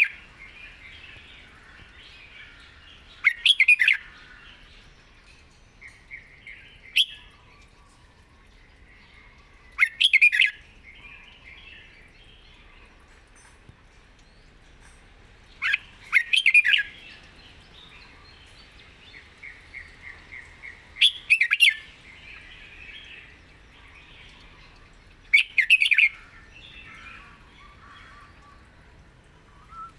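Red-whiskered bulbul singing five short, loud, rich phrases, one about every five or six seconds, with softer chirping in between.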